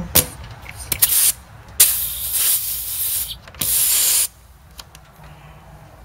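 R-134a refrigerant hissing out of the car A/C system's high-side service port as a gauge-hose quick coupler is pushed on, escaping in several short spurts and one longer burst of over a second. It is Freon being lost while the coupler seats.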